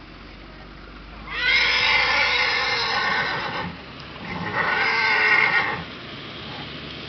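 A horse neighing loudly twice: a long call of about two seconds, then after a short break a shorter second one.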